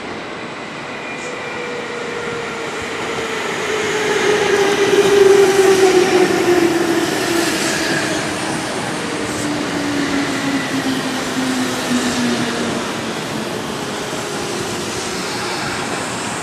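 Kintetsu red-and-white commuter electric train passing at speed on the near track, with rail and wheel noise and a whine that falls steadily in pitch as it goes by. It is loudest about five seconds in, then fades as the train runs away from the platform end.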